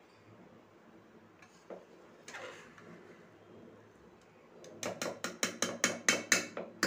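A spatula scraping and knocking against the inside of a pressure cooker as cooked rice is fluffed. A couple of faint scrapes, then near the end a quick run of about ten sharp knocks, roughly five a second.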